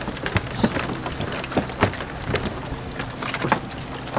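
Oars of a rowing crew's pulling boat knocking and splashing in quick, irregular succession over a steady background of water and boat noise.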